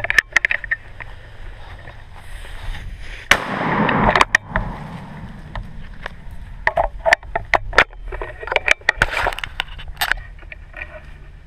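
Handling noise from a sawed-off shotgun with a camera mounted on it: repeated sharp clicks and knocks as the gun is carried and moved. About three seconds in there is one sharp knock, followed by about a second of loud rustling and scraping, and more knocks come in a cluster near the end.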